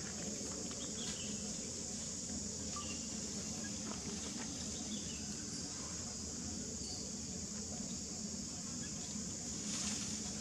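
Steady high-pitched insect chorus, like cicadas or crickets, under a low outdoor background rumble, with a few faint clicks.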